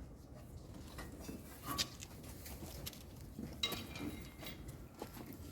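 A few scattered light clicks and clinks of tools and machine parts being handled while a washing machine is taken apart.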